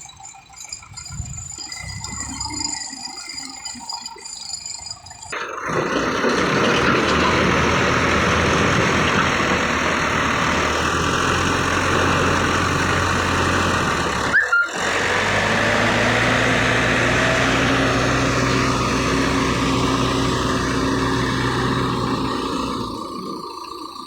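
Heavy diesel machinery working. A light rattle at first, then the engine runs loud and dense from about five seconds in. It breaks off abruptly partway through, and a steady low engine drone follows, dropping away near the end.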